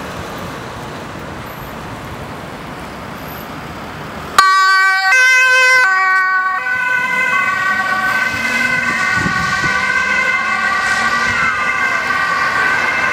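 Ambulance siren switched on suddenly about four seconds in, first alternating between two pitches, then sounding steadily as the ambulance drives off on an emergency run. Before it starts there is only low engine and road noise from the van pulling out.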